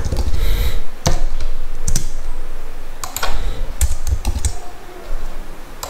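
Typing on a computer keyboard: irregular key clicks, some single, some in short quick clusters.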